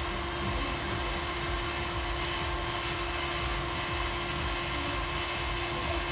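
Electric stand mixer motor running steadily, beating cake batter, with one unchanging hum and an even whirring hiss.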